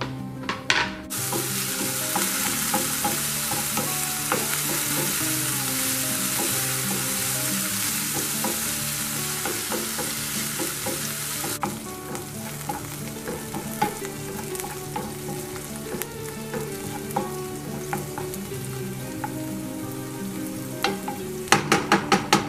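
Chopped onions sizzling in hot oil in a frying pan as they are stirred. The sizzle is loud at first, drops suddenly to a quieter level about halfway through, and near the end the wooden spoon knocks sharply on the pan about six times in quick succession.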